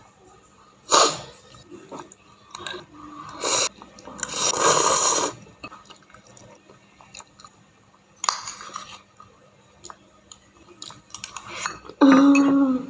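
A person eating spicy instant noodles: chewing, broken by several short noisy bursts, the longest lasting about a second around four to five seconds in. A short vocal sound comes near the end.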